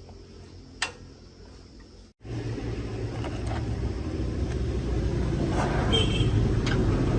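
Restored concrete mixer's engine running steadily with a low hum; after a sudden cut about two seconds in, it runs louder and rougher with a rumble.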